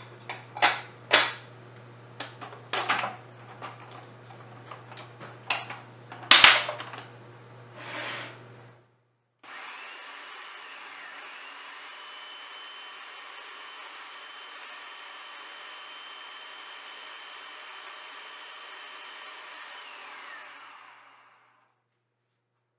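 A few sharp clicks and knocks, then an electric food chopper's motor runs steadily for about eleven seconds, mixing sugar and eggs, with a whine that rises as it starts up and falls as it winds down.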